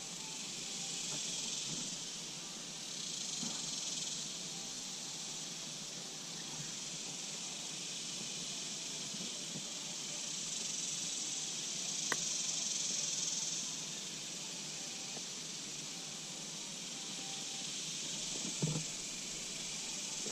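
Insect chorus: a steady high-pitched buzzing hiss that swells and fades every few seconds, with one sharp click about twelve seconds in and a couple of soft knocks near the end.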